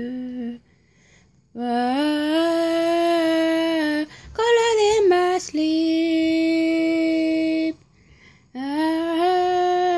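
A female voice singing unaccompanied in long held notes, one of them wavering near the middle, broken by two short silent pauses.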